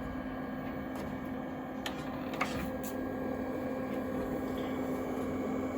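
iMac G3 running: a steady machine hum with a constant low tone, and two faint clicks about two seconds in.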